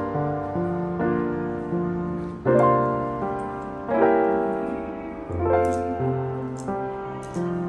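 Background piano music: slow chords and notes struck every second or so, each left to ring and fade.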